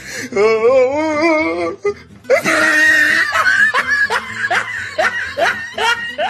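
A person laughing hard in a high voice: a wavering peal, then a run of short rising bursts about two a second.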